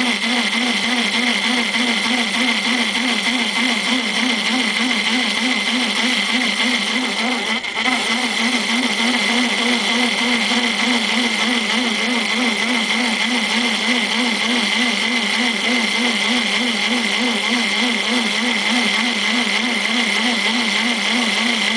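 Logan-built metal lathe running under power while a parting tool cuts cast iron. There is a steady hum that pulses evenly a few times a second, with a steady high-pitched ring from the cut over it.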